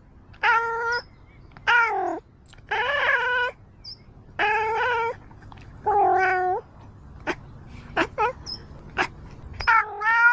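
Domestic cat meowing and yowling in a series of six drawn-out calls, each about half a second to a second long, the pitch bending within each. A few short, sharp sounds come between the last two calls.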